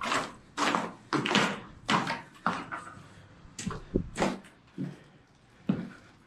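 A series of sharp knocks and bangs in a room, about a dozen at irregular intervals. They are loudest and closest together in the first half, then sparser and quieter, with one more sharp knock near the end.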